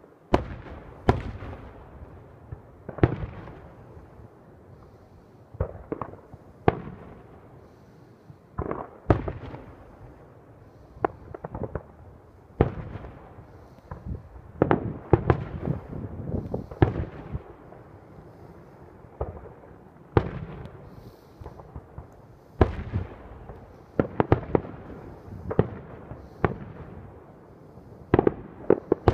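Aerial firework shells bursting one after another at irregular intervals of one to three seconds, each a sharp report followed by a trailing echo. Just before the end the reports come in quick succession.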